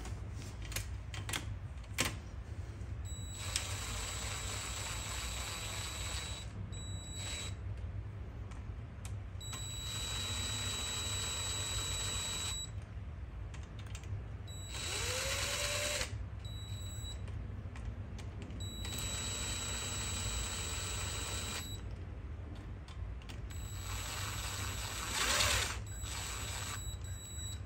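Cordless impact driver spinning the cam cap bolts down on a Kawasaki KFX 400 cylinder head, partway only, ahead of torquing. It runs in about six spells of a steady whir with a high whine, most lasting about three seconds, with a few clicks before the first one.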